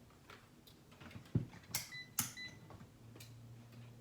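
Two short, high electronic beeps from a digital clamp meter, about half a second apart, among clicks and knocks of the meters and thermocouple leads being handled.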